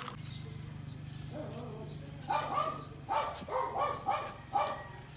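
Puppy giving a quick run of short, high yips and barks, about seven of them starting a little over two seconds in, over a low steady hum that stops about three seconds in.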